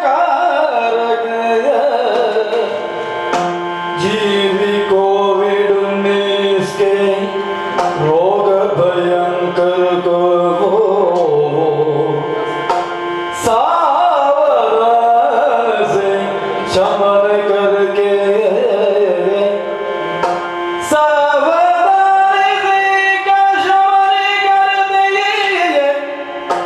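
Yakshagana music: the bhagavata (lead singer) sings a gliding melody over a steady drone, with drum accompaniment and occasional sharp strikes.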